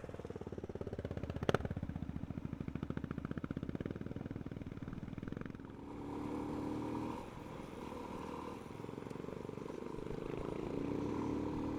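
Motorcycle engines running, the nearest with a fast, even firing pulse for the first half, then settling into a steadier, quieter hum; a single sharp click about a second and a half in.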